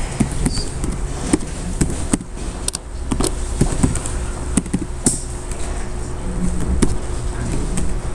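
Computer keyboard being typed on: irregular single key clicks, over a steady low hum.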